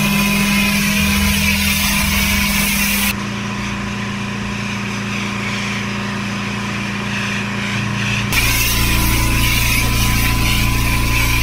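Pressure washer engine running steadily with the hiss of the water jet spraying. The sound changes abruptly about three seconds in and again near eight seconds: the spray hiss drops out in the middle stretch, then returns with a deeper engine hum.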